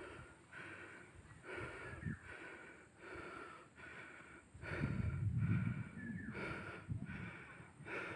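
A person breathing hard and fast, panting in a steady rhythm of about two breaths a second while walking up a steep slope. A low rumble, like wind on the microphone, swells for a second or two a little past halfway.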